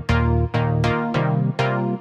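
Electronic music with a steady beat of about two pulses a second, each pulse a sharp attack on a sustained synthesizer chord.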